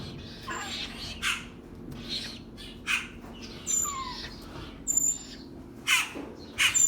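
Birds calling: a run of short, harsh calls about once a second, mixed with brief high chirps, over a faint steady low hum.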